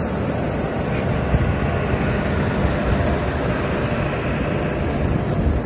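Hitachi Zaxis 350 hydraulic excavator's diesel engine running steadily, with an even low rumble.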